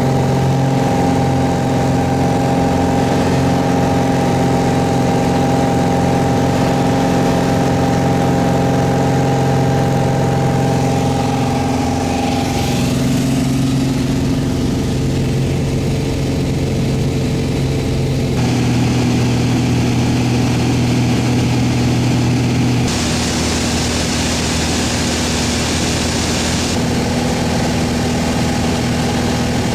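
Piper Arrow's piston engine and propeller running steadily, heard inside the cockpit. The engine tone changes abruptly several times.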